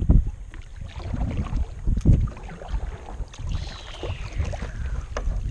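Kayak paddling on a river: paddle and water sounds under a low wind rumble on the microphone, with heavier buffets at the start and about two seconds in. A faint falling whistle comes about three and a half seconds in.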